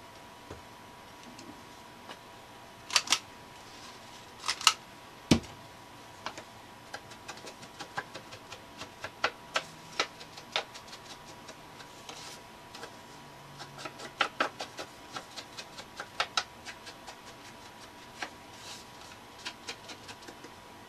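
Irregular clicks and light taps of paper and small crafting tools being handled on a work table, with a few louder knocks about three to five seconds in, over a faint steady whine.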